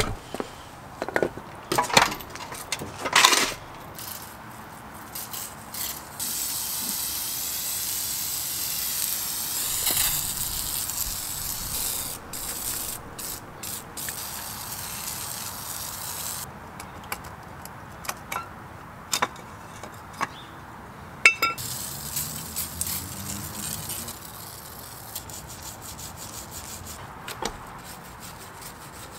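Metal clanks as a steel subframe with steering rack is handled on concrete, then a long hiss of spray cleaner, and near the end a stiff-bristled brush scrubbing a coilover shock in steady strokes.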